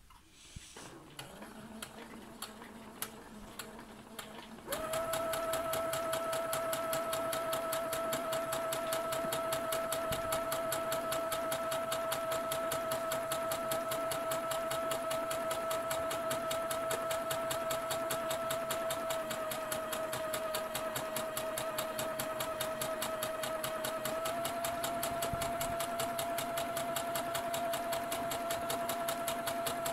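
Electric domestic sewing machine stitching a straight seam through tulle net: a few soft clicks, then about five seconds in the motor comes up to speed with a steady high whine and fast, even needle ticking that runs on without stopping. Its pitch dips slightly partway through and rises a little again later.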